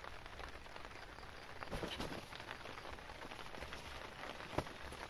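Steady rain falling on a tarp and tent, an even patter with scattered drops, and a single sharp tap about four and a half seconds in.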